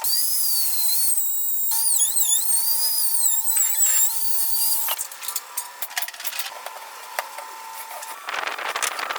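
Homemade wooden band saw's small electric motor running with a high-pitched whine and hiss; its pitch wavers and dips from about two seconds in, and it stops after about five seconds. Light clicks and taps follow, then a noisy rasping starts near the end.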